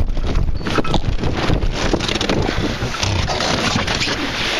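Wind buffeting the microphone over the rush and splash of water against a Snipe dinghy's hull as it sails fast through chop in strong, gusty wind, with spray hitting around the boat.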